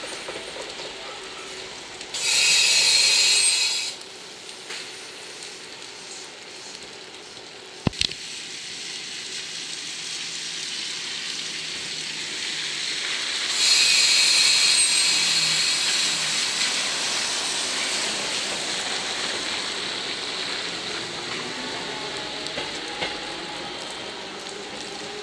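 Seibu 10000 series Red Arrow limited-express train moving slowly away. There are two loud bursts of compressed-air hiss: a short one about two seconds in and a longer one that fades out after about 13 seconds. A single sharp click comes near 8 seconds.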